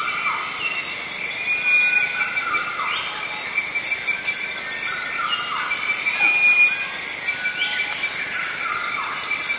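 Tropical rainforest insect chorus: a steady, loud, high-pitched drone of several insects singing at once. Over it, short gliding calls rise and fall, recurring about once a second.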